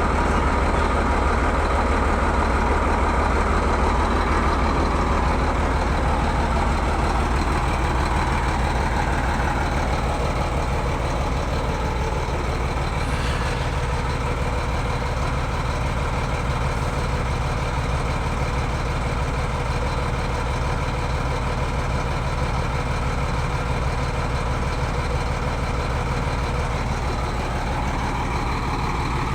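Heavy diesel engine running steadily with an even low pulse, easing slightly in loudness about a third of the way through.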